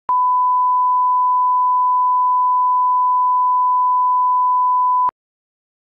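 Broadcast line-up test tone that plays under a programme countdown clock: one steady pure beep held for about five seconds, starting and cutting off abruptly with a click at each end.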